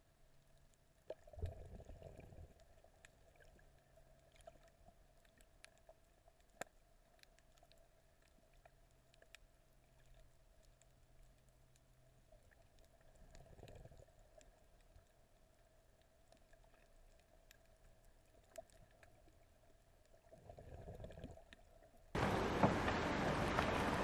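Muffled underwater sound from a camera held below the surface: faint scattered clicks and soft water swishes, over a faint steady hum. About two seconds from the end it cuts to loud, steady wind and wave noise.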